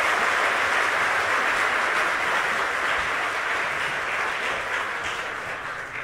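Audience applause filling a large hall after a talk. It is steady and fades toward the end.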